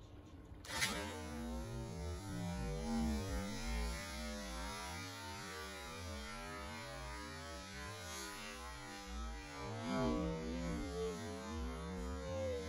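A steady low hum with a wavering, garbled tone.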